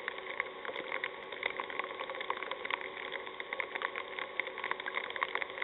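Open-air ambience from a stump or field microphone: a steady crackly hiss with many faint, irregular clicks and a few faint steady tones, and no distinct event.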